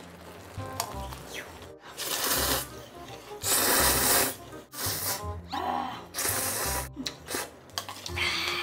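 Loud, wet slurping of spicy instant noodles sucked up in several long draws of about a second each, over background music with a steady beat.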